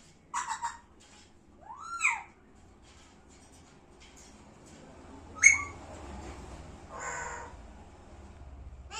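Parrot calling: a quick run of three short calls, then a whistle that rises and falls, a sharp loud call about halfway through, and a harsher squawk near the end.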